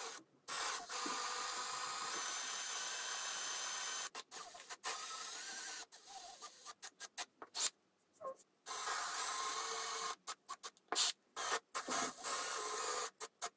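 Cordless drill boring holes into an 18 mm MDF tabletop with a 6 mm wood bit. One long steady run of the motor at the start, then several shorter runs and a string of quick trigger blips toward the end.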